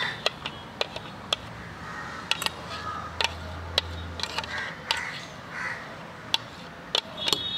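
Sharp irregular clicks and taps of a spoon knocking and scraping thick papaya smoothie out of a mixer jar into a glass jar, with crows cawing now and then.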